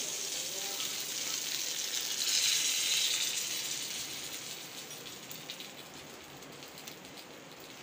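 A tarka of dried red chillies and cumin seeds, fried dark brown, sizzling as it is poured onto yogurt-and-gram-flour kadhi. The hiss swells about two to three seconds in, then dies away.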